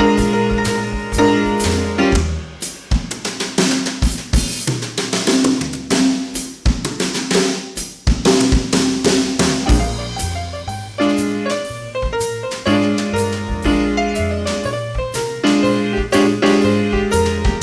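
Live instrumental jazz band playing, with the drum kit to the fore: snare, rimshots and bass drum. For several seconds in the middle the drums play largely alone, then the band's pitched instruments come back in.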